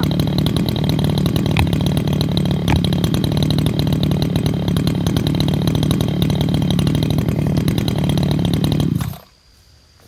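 Two-stroke chainsaw engine running at a steady speed, then shut off abruptly about nine seconds in.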